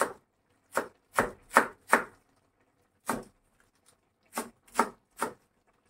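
Kitchen knife chopping fresh coriander on a plastic cutting board: about nine sharp knocks at an uneven pace, with short pauses after the fifth and sixth.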